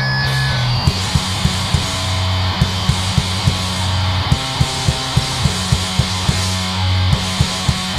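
Hardcore punk band playing live: distorted electric guitar and bass over drums that come in about a second in with fast, even hits, about three a second. High guitar feedback dies away at the start.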